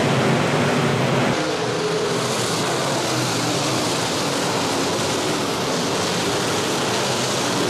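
A field of IMCA Modified dirt-track race cars racing together, their V8 engines blending into a steady drone, with an abrupt change in the sound about a second and a half in.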